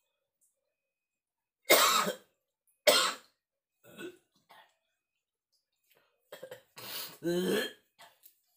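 A man with a feverish cold coughing and clearing his throat: two hard coughs about two and three seconds in, a couple of weaker ones, then another short fit of coughs near the end.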